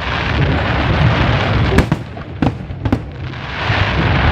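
Fireworks going off: a dense rolling rumble and crackle of many bursts. It eases about halfway through to a few single sharp bangs, then builds again near the end.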